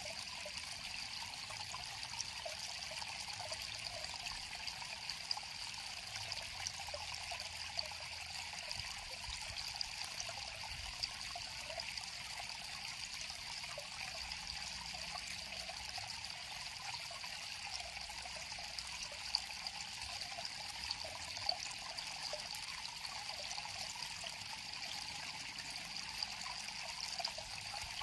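River water flowing and trickling, a steady babble.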